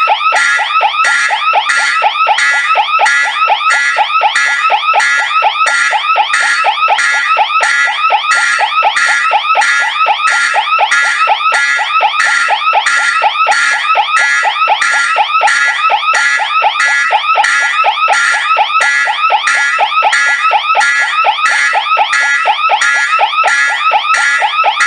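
Fire alarm sounding continuously: a loud, rapid repeating pulse that keeps on at the same strength with no let-up.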